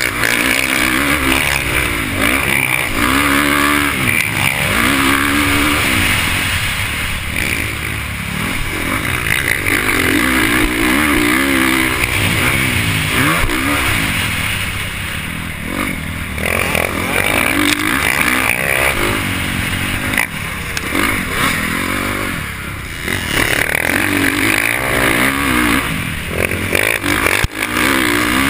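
Dirt bike engine revving hard under the rider, its pitch climbing in repeated sweeps and dropping at each gear change as it accelerates along the motocross track, heard from a helmet-mounted camera.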